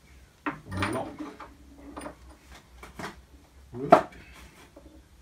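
Rummaging among tools and containers: a few separate knocks and clatters of hard objects being picked up and set down, the loudest about four seconds in.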